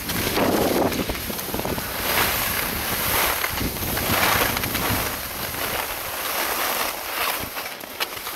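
Loud wind buffeting an action camera's microphone during a fast downhill ski run, a rushing noise that swells and dips about once a second.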